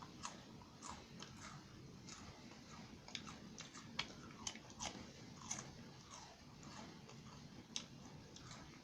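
A person chewing a salad wafer cracker, with many small crunches spread irregularly through the chewing.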